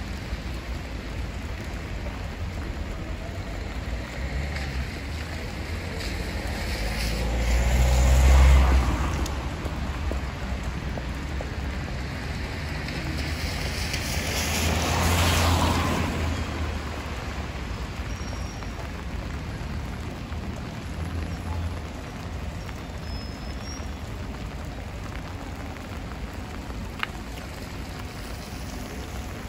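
Steady rain and wet-street hiss, with two vehicles passing over the wet road, the first about a third of the way in and the louder of the two, the second around halfway; each swells up with a tyre swish and low rumble and fades away.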